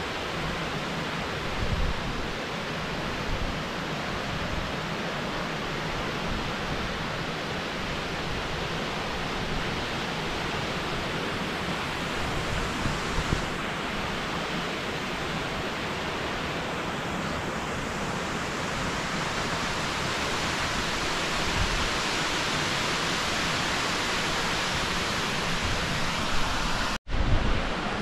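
Steady rush of falling water from the Ouzoud Falls, an even wash of noise with no let-up. It cuts out for an instant about a second before the end.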